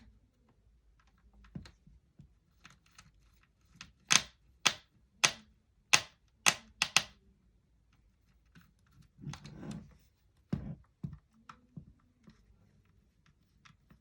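A run of about seven sharp plastic clicks over some three seconds, then a short rustle and two knocks, from handling a Dell Latitude D630 laptop's case while it is put back together.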